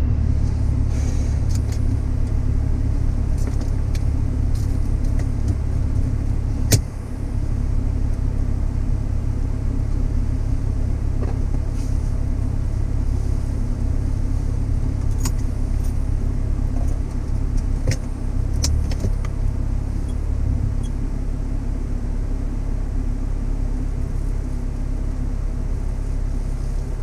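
Car driving: a steady low rumble of engine and road noise, with a few faint clicks and one sharp click about seven seconds in.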